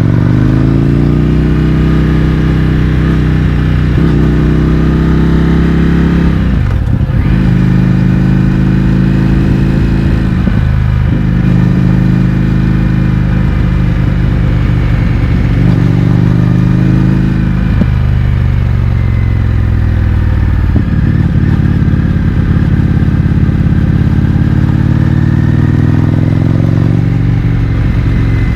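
Indian FTR 1200's V-twin engine through a baffle-less Akrapovic exhaust, heard from the rider's seat while riding: the revs climb and drop several times as the rider rolls on and off the throttle and changes gear.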